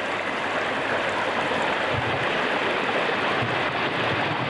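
Hot-spring water rushing steadily over rocks in a small cascade, very close to the microphone.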